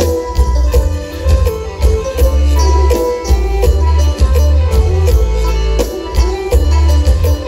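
Live Isan folk music played loud through a concert sound system: heavy bass drum pulses under a fast, steady beat of rattling hand percussion, with a sustained melody line over it.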